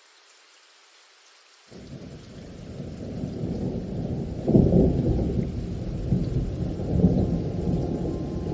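Thunder over rain: a faint steady rain hiss, then a low rumble of thunder breaks in suddenly a little under two seconds in. It builds to its loudest peak about halfway through and swells again near the end.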